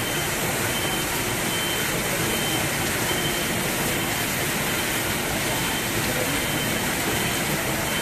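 Steady din of a hall full of computerized flat knitting machines running, with a short high beep repeating about once a second.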